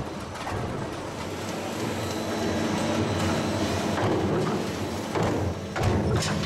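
Steel rollforming line running: a steady machine hum with metallic clatter, and a few sharp knocks about five to six seconds in.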